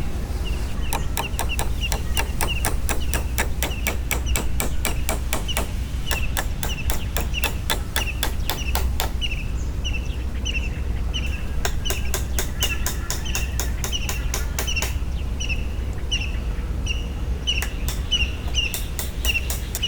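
A bird repeating a short chirp about every half second or so, over runs of rapid sharp clicks or taps that stop and start again twice.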